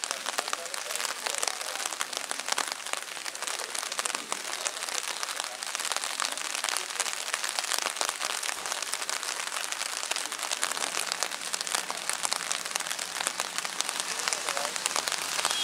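Steady rain pattering close to the microphone, dense fine drop hits. A faint low drone joins about eleven seconds in: the Cessna Caravan's turboprop starting its takeoff run far down the runway.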